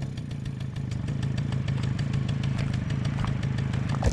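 Suzuki LT-A50 ATV's small two-stroke single-cylinder engine idling steadily, running again now that the broken kill switch has been replaced.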